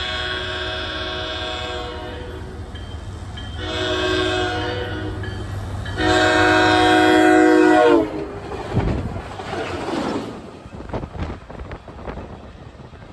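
SunRail commuter train sounding its multi-note air horn in three blasts of about two seconds each as a crossing warning. The third blast is the loudest and drops in pitch as the train passes at high speed. The rush and clatter of the train going by follows and fades.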